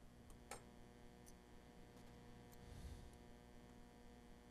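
Near silence: a faint steady hum with a few faint metal clicks, the clearest about half a second in, from a hinge rod and small tools being handled on a clarinet's upper joint.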